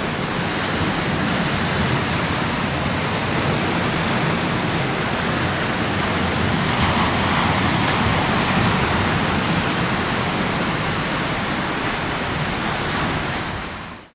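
Steady rush of wind on the microphone mixed with choppy river water, fading out near the end.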